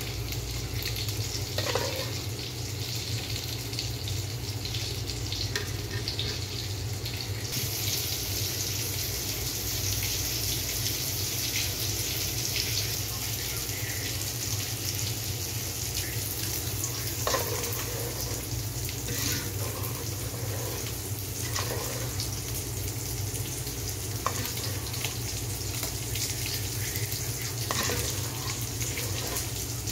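Thick dal simmering and bubbling in a steel pot, a steady hiss, with a spoon now and then scraping or knocking against the pot as it is stirred.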